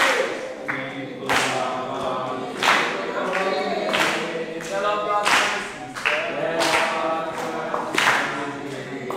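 A group of children singing together without instruments, with a loud sharp clap landing on the beat about every one and a third seconds.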